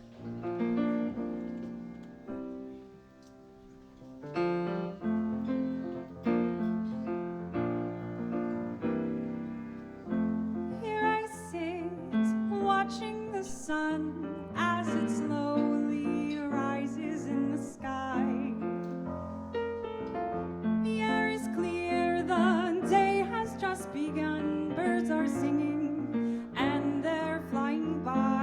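Piano playing the introduction to a song, chords and single notes, with a higher melody line with vibrato joining above it about ten seconds in.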